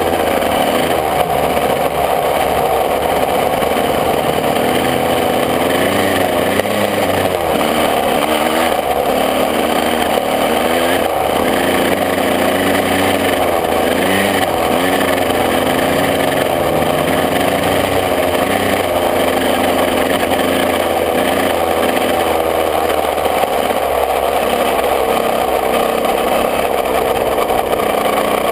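125 cc two-stroke motocross bike engine running close up, its revs rising and falling again and again.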